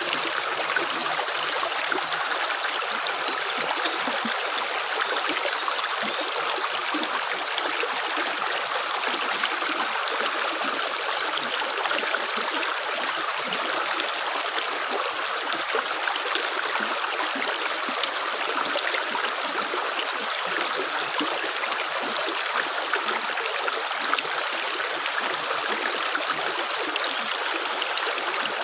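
Water flowing steadily, like a small stream: a continuous, even rushing with no separate drips.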